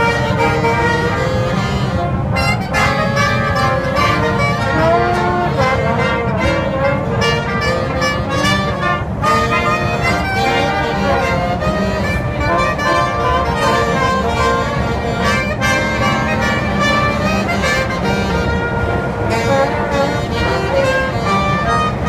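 Brass band of trumpets, trombones and saxophones playing a tune together live inside a subway car, with the train's steady low rumble underneath.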